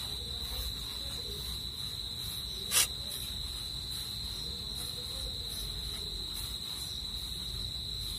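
An insect trilling in one steady high tone, with one sharp click about three seconds in.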